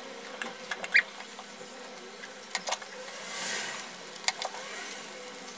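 Beans sizzling in a nonstick frying pan while a metal fork clicks and scrapes against the pan as they are tossed, with a brief squeak on the loudest click about a second in. The sizzle swells for a moment about three and a half seconds in.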